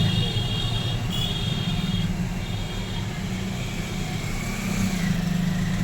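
A steady low engine or motor hum, with a high steady whine over the first couple of seconds.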